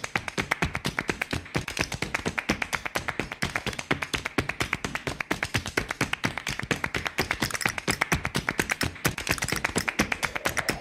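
Rapid, dense percussive tapping, about eight to ten sharp taps a second, starting suddenly; a tone rising in pitch enters near the end.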